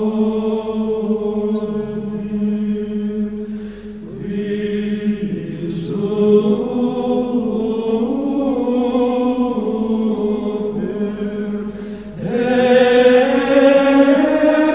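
Gregorian chant sung by a choir of monks in long, held phrases. There are short breaks for breath about four and twelve seconds in, and the phrase after the second break is louder.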